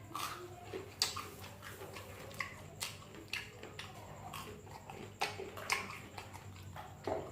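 Close-miked mouth sounds of someone eating sausages: chewing with a string of short wet smacks and clicks, one every half second or so.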